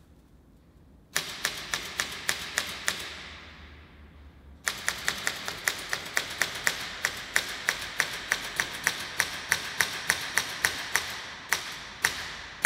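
Rapid, sharp clicks at about five a second, in two runs. A short run starts about a second in and stops, leaving a fading echo. A longer run starts about four and a half seconds in and keeps going.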